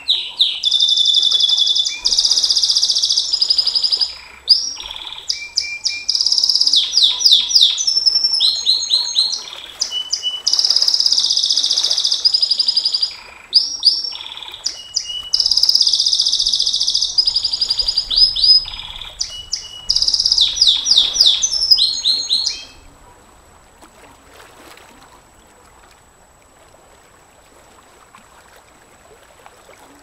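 Domestic canary singing a long, loud song of rapid high trills and rolls, one phrase running into the next. The song breaks off about three-quarters of the way through, leaving only a faint background.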